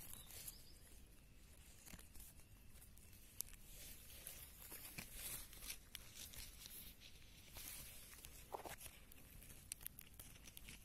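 Near silence: a faint hiss with scattered soft rustles and short clicks.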